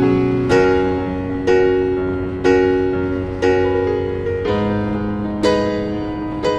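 Piano music: slow chords, a new one struck about once a second and left to ring.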